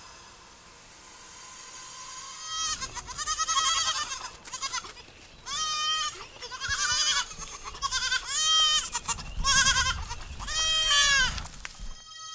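Several goats bleating, about nine wavering calls one after another, starting a couple of seconds in and ending shortly before the end.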